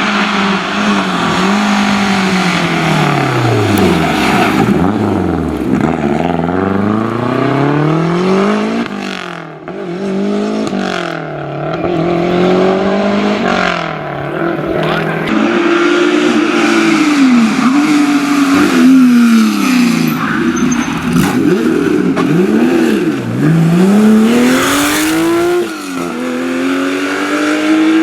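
Historic rally car engine revving hard, its pitch climbing and falling again and again as the car accelerates, shifts gear and lifts off the throttle.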